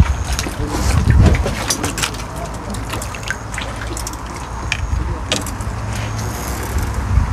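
A hooked crucian carp splashing and thrashing at the water's surface as it is drawn in on the line, loudest about a second in, then softer splashes and drips over a steady low rumble.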